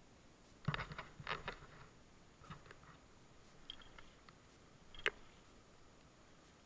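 Faint knocks and taps while a kayak is being paddled. A cluster of knocks comes about a second in, a few lighter taps follow, and there is one sharp click about five seconds in.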